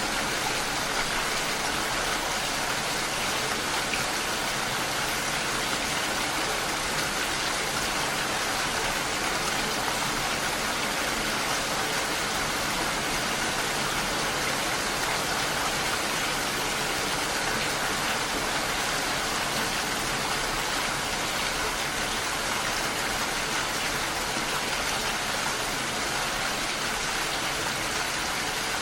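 Steady rain falling and pattering on surfaces, an even hiss of many drops with no let-up.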